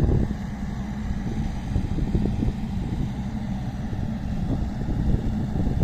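A Sany hydraulic excavator's diesel engine running steadily.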